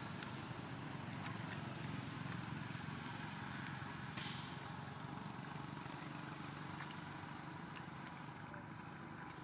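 Steady outdoor background rumble, with light splashing from small monkeys playing in a shallow muddy puddle and one sharper splash about four seconds in.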